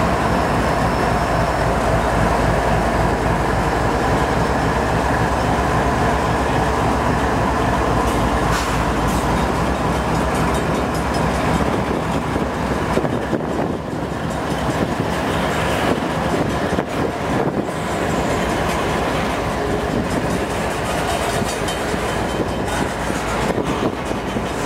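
Two GE Evolution-series diesel-electric freight locomotives, whose GEVO-12 V12 engines run steadily under load as they pull a long freight train away from a standstill. Wind noise is on the microphone.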